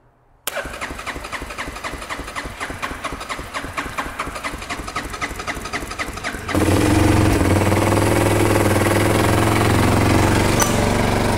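Yamaha BW350's single-cylinder four-stroke engine cranking over in quick, even pulses for about six seconds, then catching and running steadily, much louder.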